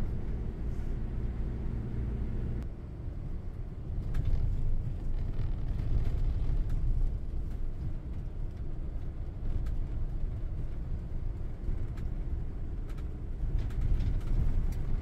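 A camper van driving on a wet road, heard from inside the cab: a steady low rumble of engine and tyres. The engine's even hum drops away about two and a half seconds in, leaving a rougher road rumble.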